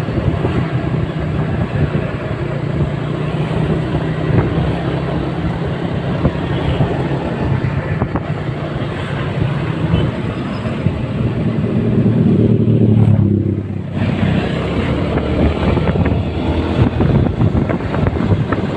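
A motor engine running steadily under heavy wind buffeting on the microphone, its pitch briefly rising and then dropping away about two-thirds of the way through.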